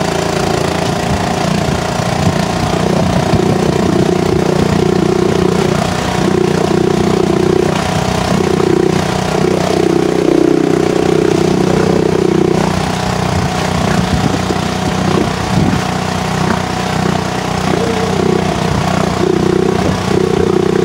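Small Honda 2.3 hp outboard motor running steadily under way, pushing the boat at about 5 knots, with wind and water noise over it.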